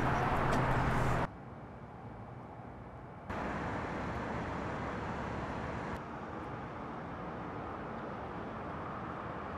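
Steady outdoor traffic and vehicle noise, with a low hum like an idling car engine for the first second or so. The background drops abruptly in level about a second in and jumps back up about two seconds later.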